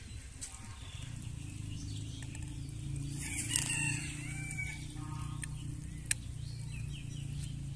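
A rooster crows once, about three seconds in, over a steady low hum, with a single sharp click about six seconds in.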